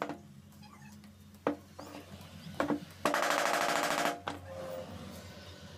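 Two single metallic knocks, then about a second of rapid rattling taps of a hand tool against metal parts on a workbench.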